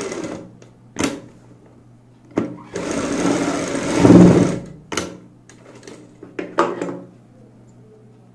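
Sewing machine stitching along an elastic waistband. A run of stitching ends in the first half second, a second run of about two and a half seconds follows, and then come several sharp clicks.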